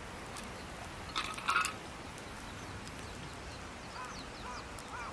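Campfire crackling with scattered sharp pops and a louder burst a little over a second in. A bird calls in a run of short, quick repeated notes from about four seconds in.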